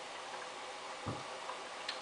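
Samsung WF8804RPA washing machine resting between drum turns: its drive motor is stopped and only a low background is left, with one dull thump about a second in and a short click near the end.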